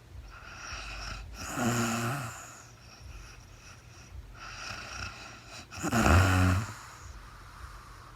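A sleeping woman snoring: two snores about four and a half seconds apart, the second louder, with quieter breathing between them.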